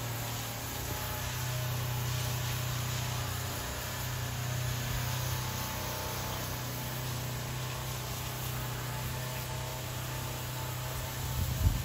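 A steady low mechanical hum over a faint even hiss, with one short thump near the end.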